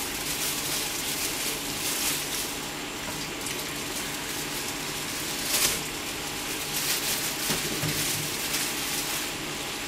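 Oil sizzling and bubbling steadily in a wide pan as karaage deep-fries, with one louder crackle about halfway through.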